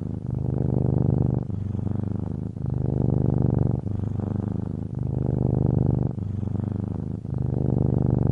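Domestic cat purring close up, in an even rhythm of breaths: the purr swells for about a second, dips briefly, then swells again.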